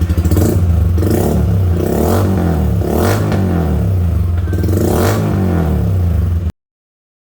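Yamaha Sniper 155's single-cylinder engine revved through an aftermarket conical tube-type exhaust, blipping the throttle about once a second, six times in a row. The sound cuts off suddenly near the end.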